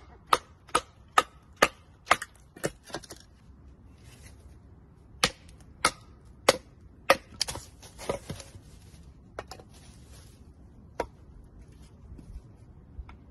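A wooden baton striking the spine of a knife set in an upright stick, batoning it to split kindling. A quick run of sharp wooden knocks, about two a second, stops after about three seconds; after a pause come four harder, spaced blows, a stretch of scraping, and a couple of lone knocks later on.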